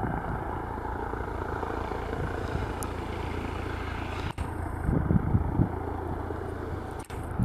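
Eurocopter EC135 P2+ twin-turbine helicopter flying low and descending: steady rotor and turbine noise. It drops out sharply twice where the footage is cut, and there is a louder uneven stretch about five seconds in.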